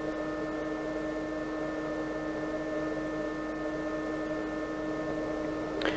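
6040 CNC router humming steadily while standing still, a whine of several held tones with the strongest low.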